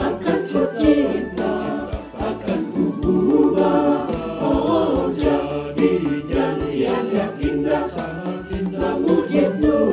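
Mixed choir of women and men singing a hymn in Indonesian over an instrumental backing with a steady low drum beat.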